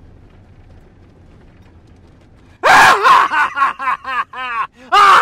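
Low, steady rumble of the van driving, heard inside the cab. About two and a half seconds in, a man breaks into loud, rapid, excited yelling and whooping, his voice swooping up and down in pitch.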